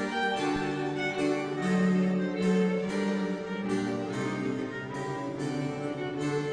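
Instrumental music with bowed strings holding long notes that change every second or so over a lighter plucked or keyboard accompaniment.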